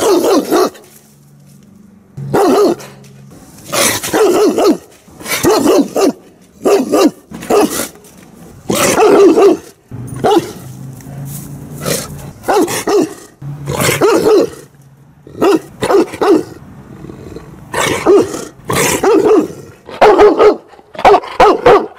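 Large junkyard dog behind a wire fence barking aggressively and repeatedly, about twenty loud barks often coming in quick pairs with short pauses between: a show of territorial, dominant aggression toward a disliked person.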